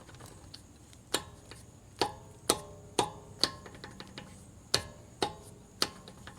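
Metal-on-metal clinks of a hand lug wrench working a loosened wheel lug nut: about eight sharp clicks, each with a short ring, at an uneven pace.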